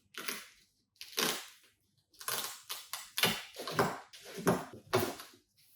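Speaker packaging being opened and handled: a string of irregular rustles, crinkles and scrapes of cardboard and wrapping.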